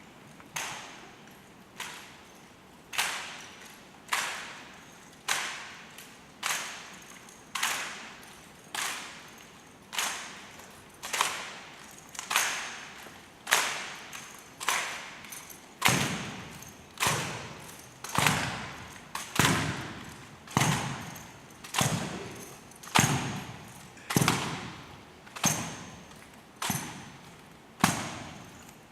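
Drill rifles striking in a steady cadence: a sharp crack a little more than once a second, each with a short ring in the hall, the strikes taking on a heavier thud from about halfway through.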